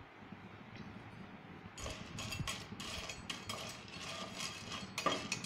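A spatula stirring popcorn kernels in hot oil in a nonstick pan: a run of quick scrapes and clicks against the pan, starting about two seconds in.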